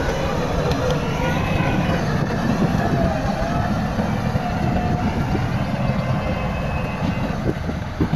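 Heavy diesel earthmoving machinery running with a steady low engine rumble, a faint wavering whine above it and a few sharp knocks near the end.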